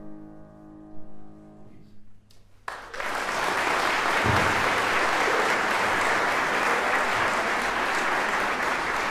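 Last piano chord ringing out and fading away, then about three seconds in an audience bursts into steady applause that carries on.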